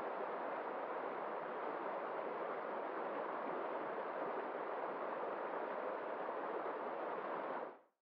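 Shallow rocky stream rushing over stones: a steady, even rush of water that fades out quickly near the end.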